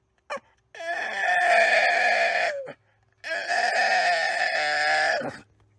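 An animal giving two long, pitched calls of about two seconds each, each dropping in pitch at the end.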